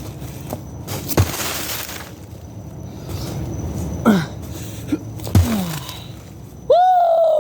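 A watermelon being smashed open: a hard thump about a second in, followed by a burst of cracking and splattering, then a few more knocks.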